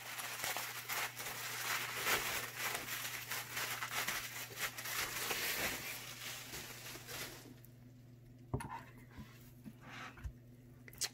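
Plastic bubble wrap crinkling and rustling as it is pulled off an acrylic distribution plate for about seven seconds, then much quieter with a few light knocks as the plate is handled on a desk.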